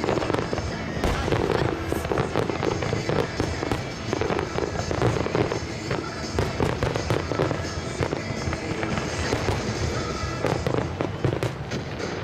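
Fireworks display: a dense, unbroken run of bangs and crackles, with music playing underneath.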